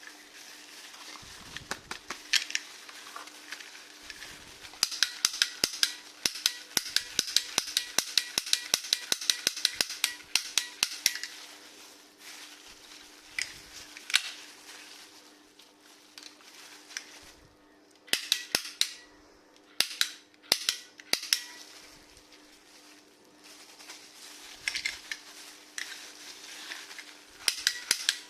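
Toy guns being fired and worked: sharp snapping clicks, first in a fast run lasting several seconds, then in short scattered bursts.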